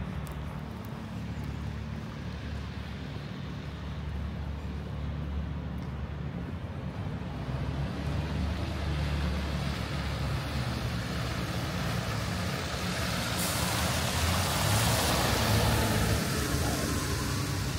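Street traffic with a heavy vehicle such as a truck or bus: a steady low engine rumble, with vehicle noise growing louder over the second half. A sharp hiss sets in about thirteen seconds in and lasts a few seconds.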